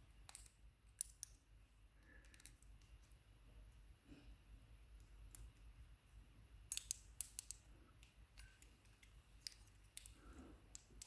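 Small sharp metallic clicks and taps of lock parts being handled, scattered, with a quick run of several louder clicks about two-thirds of the way through.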